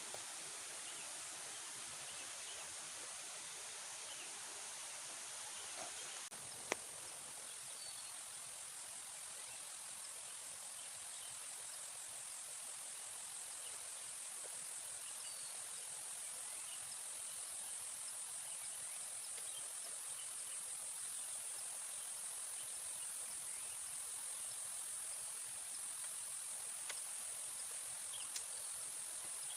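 Insects chirring in a steady, high-pitched drone, with a few faint short chirps and a single sharp click about seven seconds in.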